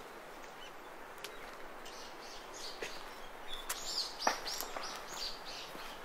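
A songbird calling in a run of repeated high chirps, coming faster, about four a second, in the second half, with footsteps crunching underneath.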